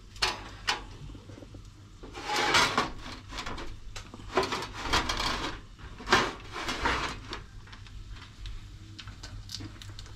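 Metal grill drawer of a Rinnai gas stove's built-in grill being handled and slid shut over bread on its wire rack: a series of irregular metallic scrapes and clatters over several seconds.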